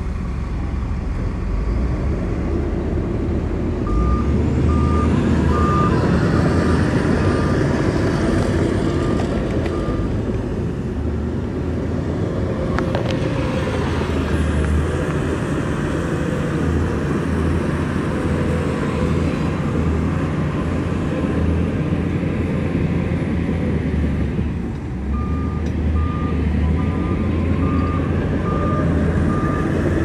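Heavy diesel earthmoving machinery, a bulldozer and dump truck, running steadily under load. A reversing alarm beeps in an even series twice, once for several seconds a few seconds in and again near the end, signalling a machine backing up.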